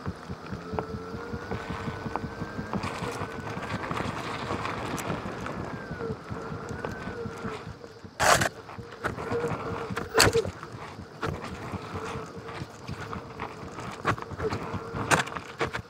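Onewheel GT hub motor whining as the board rides, picked up by a microphone inside the board's rail: a steady low whine with a higher tone that rises and falls, over tyre rumble. Three sharp knocks break in from about halfway on as the board bumps over dirt.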